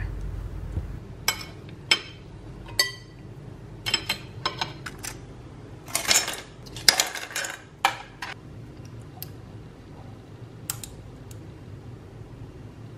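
Metal spoon clinking on a ceramic plate, then ice cubes clinking and clattering into a drinking glass: a string of separate clinks, thickest about six to seven and a half seconds in, then only a few scattered ones.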